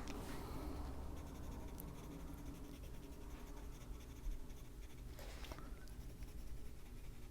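Wax-based Prismacolor coloured pencil scratching softly on paper in short strokes as small shapes are filled in, over a low steady hum.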